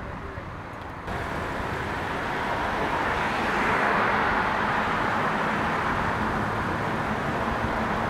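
Road traffic noise: a steady rushing hiss of passing vehicles that steps up about a second in and grows louder over the next few seconds.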